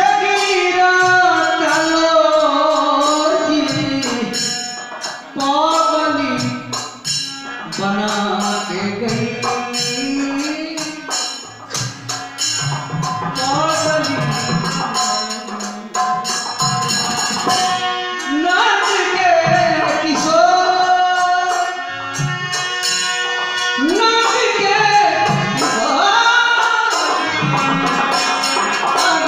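Bhojpuri purvi folk song: a voice singing long, sliding melodic phrases with short breaks, over tambourine and drum accompaniment.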